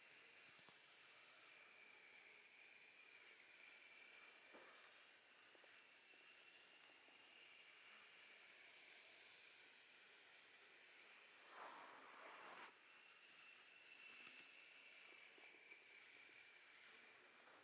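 Near silence: faint steady hiss, with one soft rubbing stroke lasting about a second, twelve seconds in, and a couple of fainter strokes earlier.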